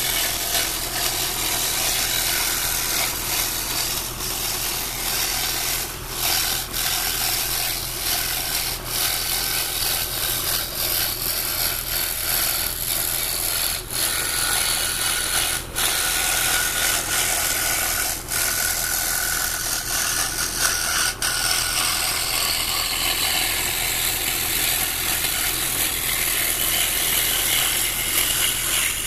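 Scroll saw with a reverse-tooth blade cutting a fretwork pattern in wood: a steady, rapid rasping of the blade through the wood over the motor's hum. It dips briefly a few times as the cut is steered.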